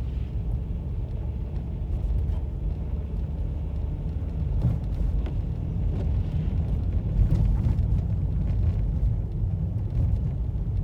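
Car climbing an icy, snow-covered hill, heard from inside the cabin: a steady low rumble of engine and tyres, with the tyres slipping on the ice.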